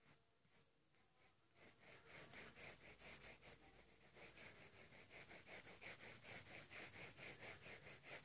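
Graphite pencil scratching on paper in quick back-and-forth shading strokes. It is faint and sparse at first, then becomes a steady, rapid scratching about a second and a half in.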